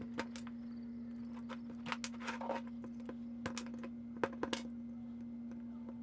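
Scattered light clicks and rattles of an extension cord's wires and a metal wire stripper being handled, densest about two seconds in and again past the four-second mark, over a steady low hum.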